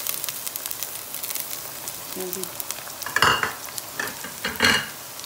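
Onions and spices frying in hot oil in a non-stick pan, a steady sizzle and crackle. Two louder bursts of sizzling come about three and about four and a half seconds in, as chopped green chillies go into the hot oil.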